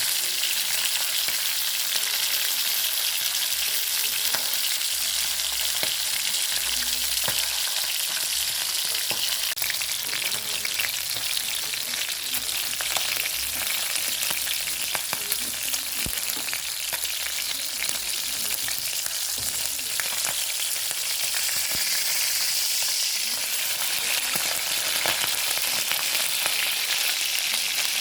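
Chicken pieces frying in hot oil in a pan: a steady sizzle with scattered small crackles and pops.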